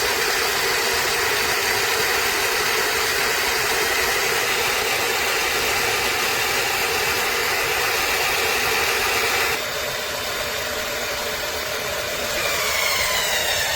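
A machine running steadily, a motor's hum and whine over a hiss. About nine and a half seconds in, the hiss drops away and it gets slightly quieter; near the end a whine slides down in pitch and holds as the level comes back up.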